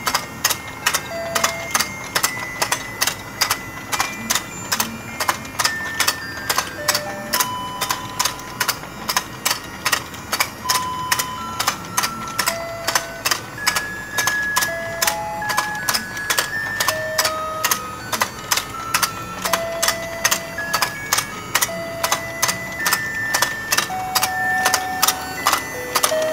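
Shinetoy rotating fishing-game toy running: its music chip plays a simple beeping tune, one thin note at a time, over a fast, regular clicking from the mechanism that turns the ponds.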